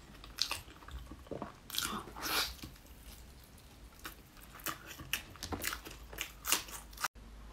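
Wet chewing and lip-smacking of a mouthful of fatty pork, heard as irregular sharp clicks.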